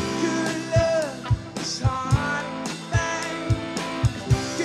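Live rock band playing a song: drum kit keeping a steady beat of about two kicks a second under bass and guitars, with sliding, bending lead notes over the top.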